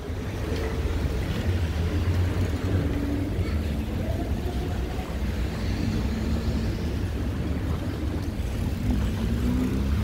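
Steady low rumble of city road traffic, with a faint engine hum from vehicles passing close by.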